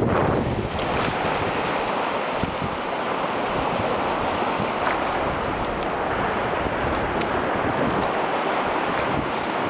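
Small lake waves breaking and washing in over a shallow pebble-and-cobble shore: a steady wash and hiss, with some wind on the microphone.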